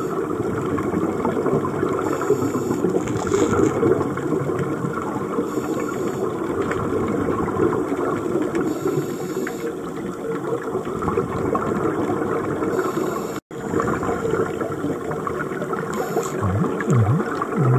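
Scuba regulator breathing underwater: continuous bubbling and gurgling of exhaled air, with a brief hiss every three to four seconds.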